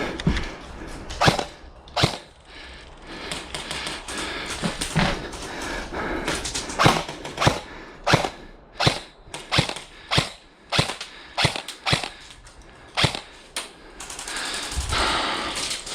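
Airsoft guns firing sharp single shots at an irregular pace, at times about two a second, with a steady noisy background.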